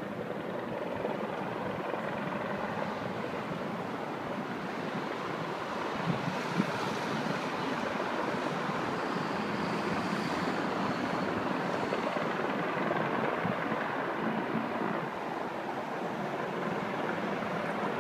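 Steady rushing noise of city street traffic passing below, with two brief knocks a little after six seconds in.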